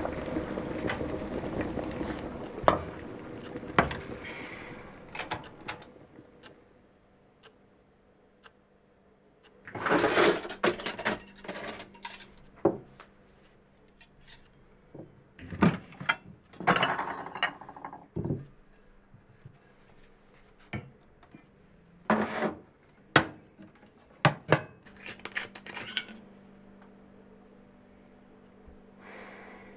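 Kitchen handling sounds: a cloth rubbing over an electric stove top at first, then scattered clinks, knocks and rustles of cutlery, dishes and glass being moved. A faint steady hum lies underneath in the second half.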